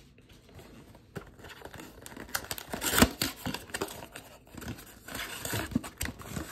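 Empty cardboard trading-card box handled and turned over in the hands: scattered rustling and crinkling with light knocks and scrapes, the sharpest knock about three seconds in.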